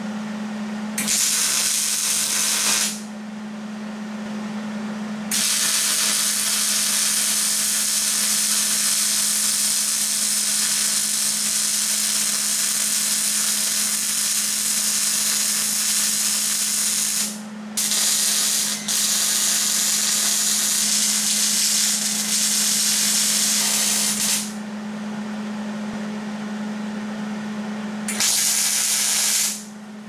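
Electric arc welding on a steel frame: the arc crackles and hisses in five runs, from about a second to about twelve seconds long, with short breaks between them, over a steady low hum.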